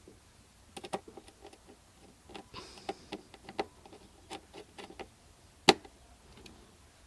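Irregular clicks, taps and light rattles of computer parts and packaging being handled during a PC build, with one sharp, louder click about two-thirds of the way through.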